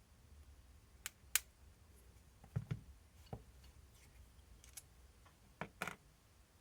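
Small clicks and light knocks of RC shock parts being handled and fitted together, about a dozen irregular sharp taps, the loudest a pair about a second and a half in.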